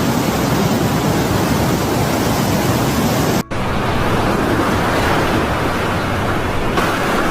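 A loud, steady rushing noise with no pitch, broken off for an instant about three and a half seconds in.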